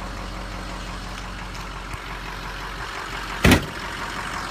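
Ford 6.0L Power Stroke turbo-diesel V8 idling steadily. About three and a half seconds in, a single loud thud of the pickup's door being shut.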